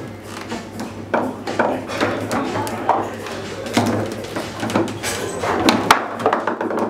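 Table football in play: the ball clacking sharply off the figures and the table walls, with knocks from the rods being slid and spun, at irregular moments.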